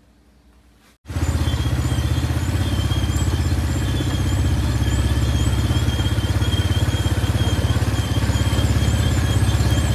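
Quad bike (ATV) engine running as the bike rides along a paved street: a steady, rapidly pulsing engine note with a faint high whine over it. It starts abruptly about a second in.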